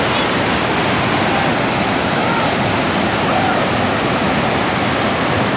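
Muddy floodwater rushing in a fast, steady torrent, with faint distant human calls about two and three seconds in.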